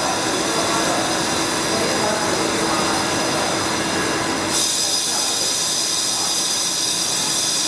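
CNC vertical lathe turning a metal wheel hub, the cutting tool giving a steady hiss of cutting and flying chips with a high-pitched whine above it. About four and a half seconds in, the low rumble falls away and the high whine grows stronger.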